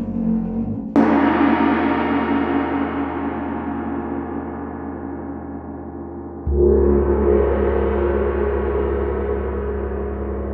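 A gong struck twice: a sharp, bright hit about a second in that rings out with a long, slowly fading shimmer, then a second, softer-attacked stroke with a deep low hum a little past the middle, which also rings on.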